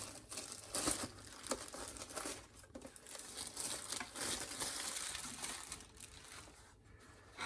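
Packaging crinkling and rustling as it is pulled apart and the award is drawn out of its box, a steady run of small crackles and scrapes that dies away near the end.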